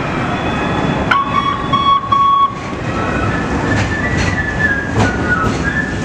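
Chicago 'L' rapid-transit train pulling into an elevated station, with a steady rumble, high squealing tones that shift in pitch, and a few sharp clicks.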